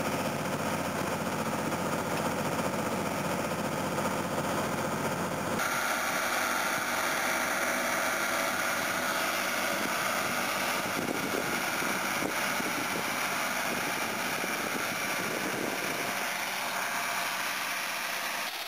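A vehicle engine running steadily while travelling along a dirt farm track. About five seconds in, the sound changes abruptly to a farm tractor with a fertiliser spreader working a field: its engine runs steadily under a brighter hiss.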